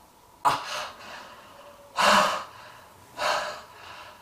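A man gasping for breath through an open mouth: three loud, heavy gasps about a second and a half apart, the middle one the loudest.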